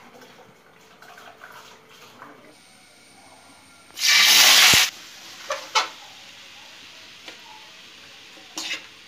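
Sliced ivy gourd and onion tipped from a steel bowl into hot oil in an aluminium wok: a loud sizzle for about a second, about four seconds in, settling into a softer steady frying hiss with a few spatula scrapes against the pan.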